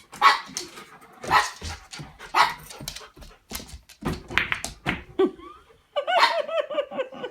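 A dog barking three times, then a series of sharp clicks and knocks, and near the end a rapid run of high whining yips.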